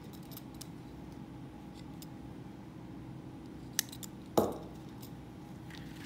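Nylon webbing being handled on a tabletop: faint rustles and small clicks, then a sharp click and a louder knock a little past midway, over a steady low hum.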